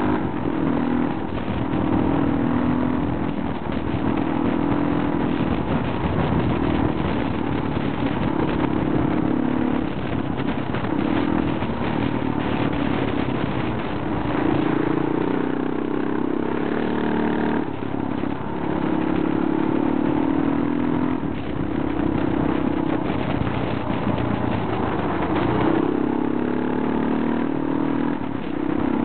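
Motorcycle engine running while riding, its note rising and falling every few seconds with the throttle.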